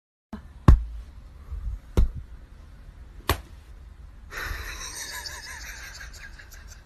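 Three sharp slaps about a second and a half apart, a small dog's paw smacking a person's hand, followed by a faint steady hiss.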